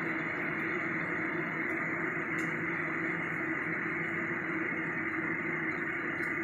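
Steady background hum and hiss, like a running machine, with one faint click about two and a half seconds in.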